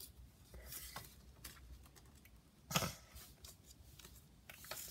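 Light clicks and taps of small plastic action-figure parts being handled, with one louder knock a little before three seconds in.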